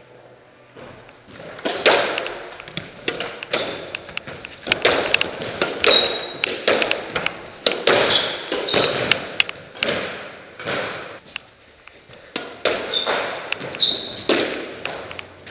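Squash rally: repeated sharp knocks of the ball off rackets and the court walls, at irregular spacing, with short high squeaks of court shoes on the wooden floor. The play goes quiet for about two seconds a little after the middle, then picks up again.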